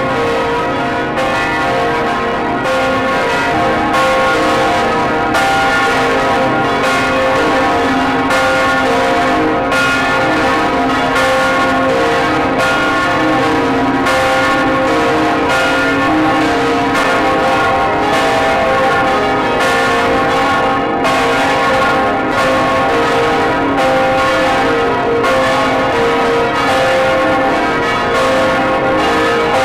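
Large swinging bronze church bells of St. Catherine's Church, Gdańsk, ringing together, heard from inside the bell chamber. The strokes fall a little over a second apart and overlap into continuous loud ringing. This is a farewell peal for a funeral.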